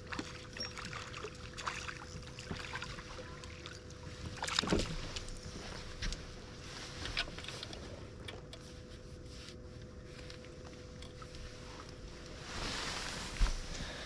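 Fishing boat ambience on calm water: a steady faint hum under light wind and water noise, with scattered small clicks and knocks of tackle and hull handling, the loudest knock about four seconds in and a short rush of hiss near the end.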